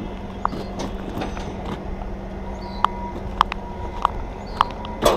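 Footsteps of boots on asphalt, a short sharp click at each step, about one step every half second or so.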